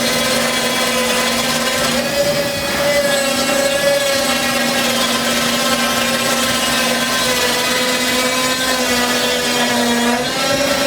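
Water-powered sawmill running, its saw cutting wood with a steady whine that wavers slightly in pitch.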